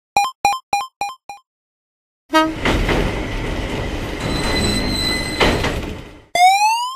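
A short beep repeated as a fading echo, five times. Then a freight train rumbles past for about four seconds, with a steady high squeal over the rattle. A quick rising glide sound effect comes near the end.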